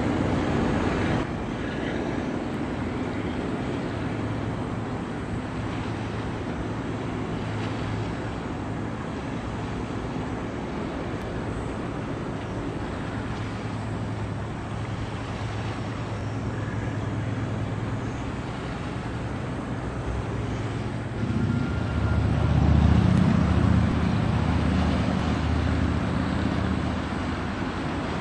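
Low, steady engine drone of a passing coastal cement carrier over a hiss of wind and water. The drone swells louder about 21 seconds in and eases a little toward the end.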